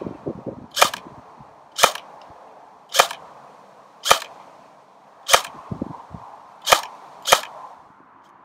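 LCT AKMS airsoft electric gun (AEG) with stock gearbox and stock hop firing single shots: seven sharp snaps roughly a second apart, the last two closer together.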